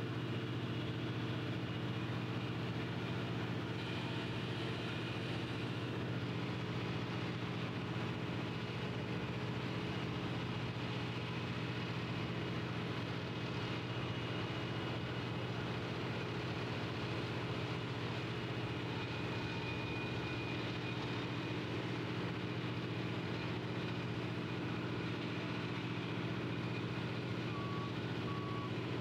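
Heavy diesel engine running steadily with a low hum. A vehicle's reversing alarm starts beeping near the end.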